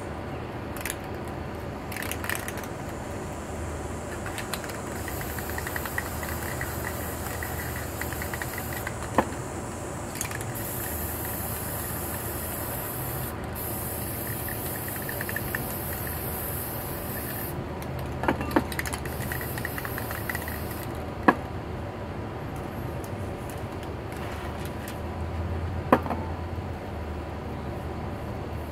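Aerosol spray-paint cans hissing in bursts, the longest lasting about seven seconds in the middle, with a few sharp clicks and knocks in between.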